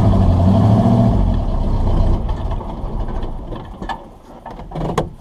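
A 4x4 wrecker's engine pulling under load as it tows a disabled vehicle. It is loud for the first two seconds, then eases off and fades, with a few faint knocks near the end.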